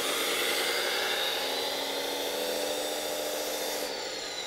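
Electric drive and hydraulic pump of a 1/14 scale metal RC hydraulic wheel loader whirring as the model is driven round, with a low steady hum in the middle. A high whine falls in pitch near the end.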